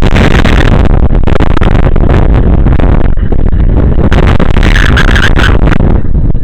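Strong wind buffeting the camera's microphone and overloading it: a loud, distorted rumble and roar that stays at full level.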